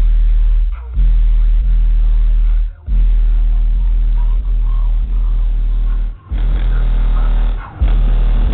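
Hip-hop track played loud through a car's Lanzar Opti1535D 15-inch subwoofer, the deep bass notes far louder than anything else. The bass drops out for a moment four times, at the breaks in the beat.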